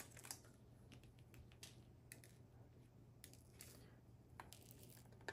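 Faint scattered light clicks and ticks of diamond-painting drills, tiny resin beads, shifting on a plastic drill tray and dropping into a small plastic storage container. A slightly sharper click comes right at the start and another near the end.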